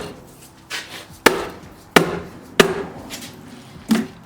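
Dead blow hammer striking a Ford flathead V8's cylinder head about five times, a sharp knock every half second or so, to break the rusted head loose from the block.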